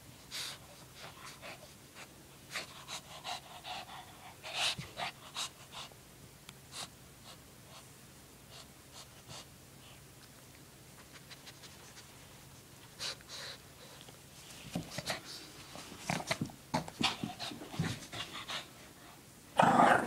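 Shih Tzu panting and snuffling in short breaths, with soft scuffles and rustles as it tussles with a blanket on carpet. A much louder burst of sound starts right at the end.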